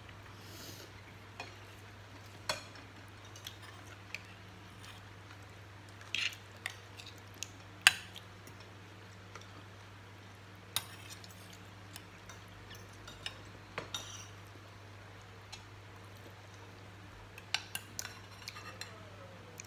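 Metal spoons and forks clinking and scraping against ceramic bowls and plates as people serve and eat, in irregular single clinks and short clusters, the loudest about eight seconds in.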